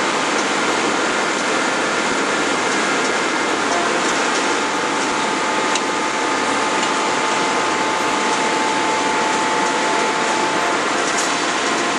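Steady hiss and hum of the hydraulic machinery of a 400 kJ hydraulic closed-die forging hammer and its forging manipulator running, with no hammer blows struck. A faint whine comes in about four seconds in and stops near the end.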